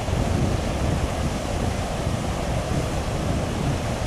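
Water pouring over a river weir's gates into foaming water below, a steady rushing noise.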